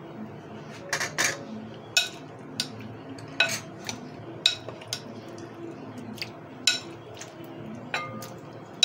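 Metal spoon clinking against serving bowls while chickpea chaat is spooned from one bowl into another: about a dozen sharp, irregular clinks.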